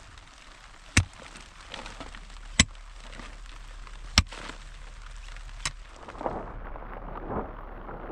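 Four sharp, hard blows, evenly spaced about a second and a half apart, each a single crack. After about six seconds the sound turns duller, with only softer thuds.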